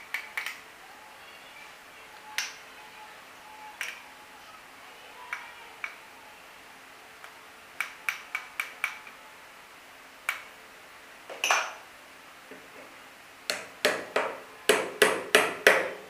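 Sharp metallic clicks and pings as charged magnet segments are fitted into the steel magnet ring of an e-rickshaw hub motor. Near the end comes a quick run of about six light hammer taps, tapping the magnets so they grip their slots properly.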